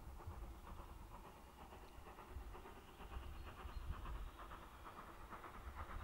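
Steam locomotive working a train, its exhaust beats making a faint, steady chuffing rhythm over a low rumble of wind.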